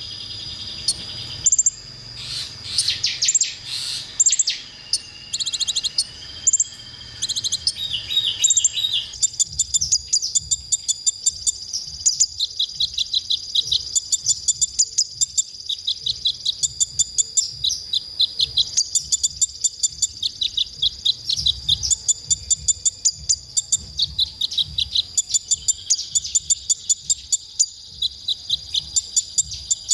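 Male kolibri ninja sunbird (van Hasselt's sunbird) singing. It gives a varied twitter of thin, high notes for the first nine seconds or so, then a long series of short, sharp high chirps repeated evenly and quickly. A steady high whine runs underneath.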